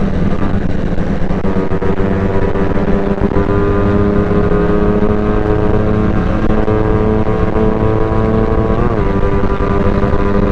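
Motorcycle engine running steadily at highway speed, its pitch creeping slowly upward, with a quick dip and recovery in pitch about nine seconds in. Wind rushes over the bike-mounted microphone.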